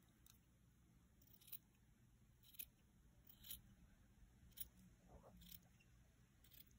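Small sharp scissors snipping through a thread tassel's cut ends, trimming them even: about eight faint, crisp snips, roughly one a second.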